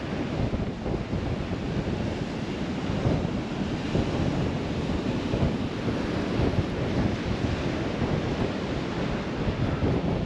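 Wind buffeting the microphone over a steady rush of breaking surf from a rough, wavy sea.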